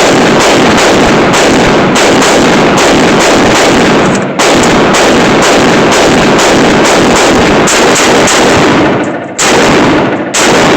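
Rapid gunshots fired in quick succession, about two to three a second, loud enough to overload the microphone, with brief pauses about four seconds in and near the end.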